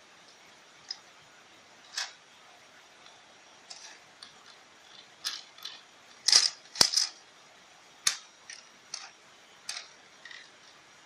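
Irregular sharp clicks and light rattles of small hard objects being handled, a few a second at most, loudest in a cluster about six to seven seconds in, over a faint steady hiss.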